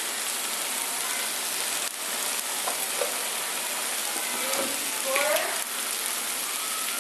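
Yuca gnocchi and mushroom-tomato sauce sizzling steadily in a frying pan on the stove.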